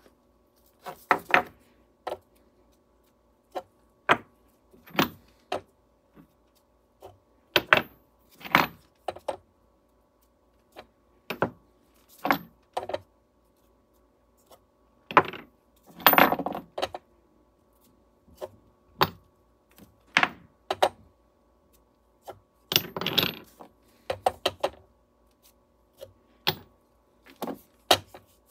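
Cast aluminium ingots clinking and clattering against each other as they are handled, in irregular metallic knocks, some ringing briefly, with a few longer rattling clusters.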